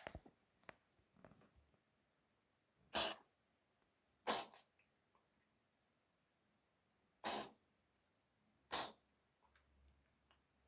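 A house cat with a cold sneezing four times, each a short, sharp burst, in two pairs a few seconds apart.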